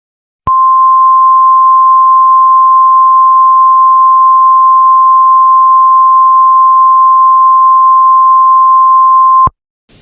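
Emergency Alert System attention signal: a single loud steady tone of about 1050 Hz, the NOAA Weather Radio warning tone. It starts about half a second in and cuts off sharply about nine seconds later.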